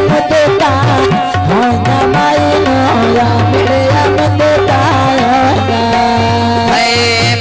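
Instrumental folk music: a gliding melody over a steady, rhythmic drum beat.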